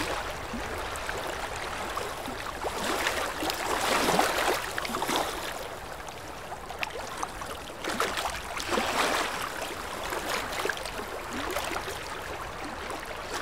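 Choppy sea water sloshing and splashing around a camera held right at the surface, swelling louder about three seconds in and again about eight seconds in.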